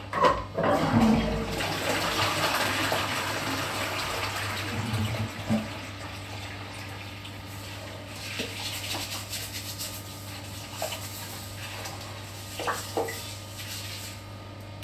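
Toilet flushing: a sharp start, then water rushing into the bowl for about five seconds. It settles to a quieter steady hiss of running water, with a few light knocks.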